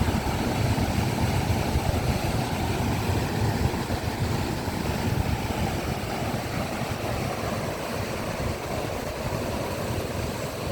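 Sea waves washing on the shore: a steady, low rumbling surf noise.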